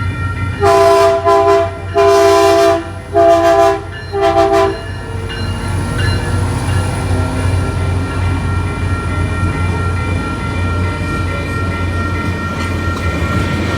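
Caltrain locomotive air horn sounding a run of loud blasts: two long ones, then shorter ones. The train then rolls past with a steady low rumble, and the crossing's electronic bell keeps ringing.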